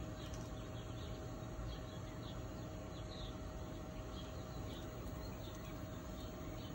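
Steady background ambience with a constant hum, and faint, scattered short high chirps from small birds.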